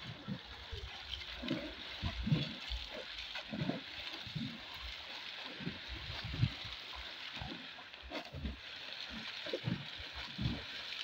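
Water splashing as a swimmer swims butterfly, a splash with each stroke roughly once a second, over a steady hiss.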